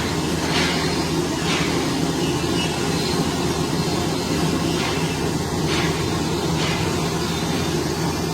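Steady machine drone of woodworking workshop machinery running, with short hissing strokes now and then.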